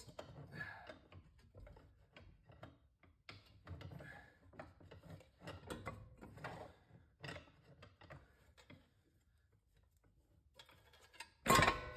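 Hand tools clicking, scraping and rattling on metal as the driver-side CV axle of a Subaru Forester is worked free at the differential, then a loud metallic clang with a short ring near the end.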